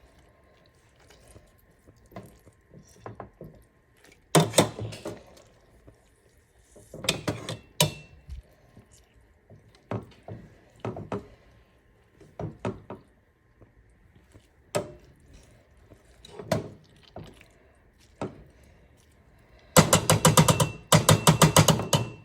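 Kitchen handling sounds from a pot: scattered knocks and clinks of a utensil against the pot as softened oranges are squeezed, with heavier clusters of knocks a few seconds in. Near the end comes a fast run of rapid, evenly spaced clicks lasting about two seconds.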